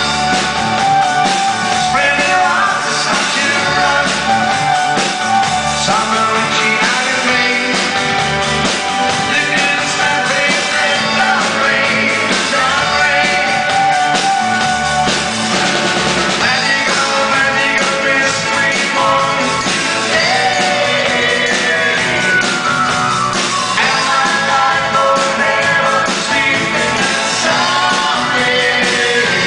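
A live pop-rock band playing in a concert hall, with singing. The band has acoustic and bass guitars, a drum kit, congas and keyboards.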